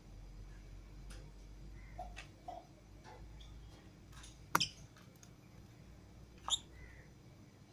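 Lovebirds making scattered soft clicks and brief chirps, with two sharper, louder calls about halfway through and near the end.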